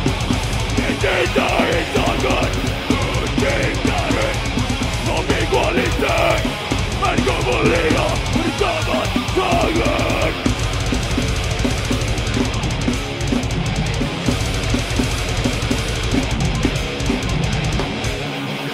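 Death metal band playing live: drum kit and electric guitars in a dense, continuous wall of sound, busier in the mid range for the first half.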